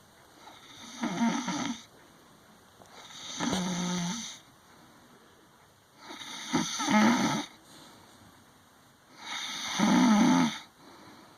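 A sleeping woman snoring: four snoring breaths about three seconds apart, each lasting one to two seconds, with quiet between them.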